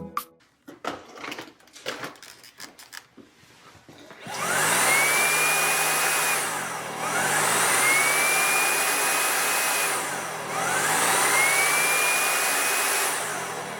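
Jigoo V700 vacuum motor spinning up three times. Each time a rising whine settles at a steady high pitch over the rush of suction, with a brief dip between runs, after a few light clicks.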